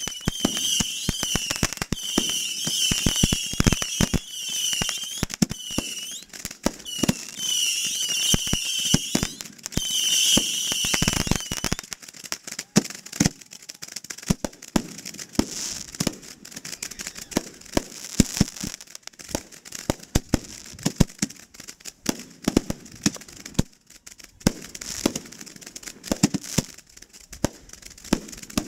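Consumer firework cakes firing at close range: a rapid string of pops and bangs. Over the first dozen seconds there are also repeated bursts of a high, warbling whistle, then denser crackling pops.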